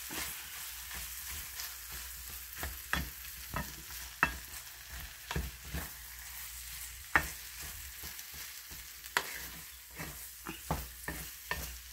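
Wooden spatula stirring and scraping corned beef hash in a stainless steel skillet, with irregular sharp scrapes and knocks against the pan over a steady frying sizzle.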